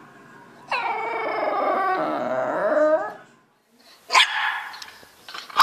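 An English bulldog howls in one long drawn-out call that starts high, sags in pitch and wavers before breaking off. After a short gap, a bulldog puppy gives a short sharp bark at its own reflection in a mirror, and another one right at the end.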